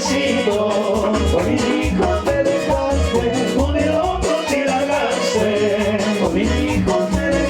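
Latin dance band music with a bass beat about twice a second, shaker percussion and a wavering melody line, with no speech over it.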